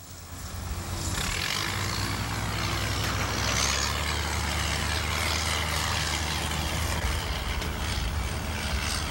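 Diesel engines of heavy earth-moving machinery (an excavator, then a tracked dozer) running, a steady low engine drone that fades in over the first second.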